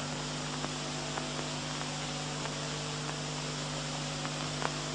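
Steady electrical mains hum with hiss, broken by a few faint clicks.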